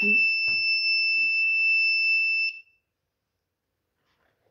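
Electronic buzzer on a solar lawnmower prototype sounding one steady high-pitched beep, its alert that the ultrasonic sensor is detecting an obstacle. The beep cuts off suddenly about two and a half seconds in.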